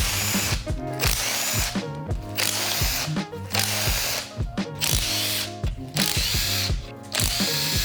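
Makita cordless power tool spinning out engine oil sump bolts in repeated short bursts, each about half a second to a second long with brief pauses between. Background music plays underneath.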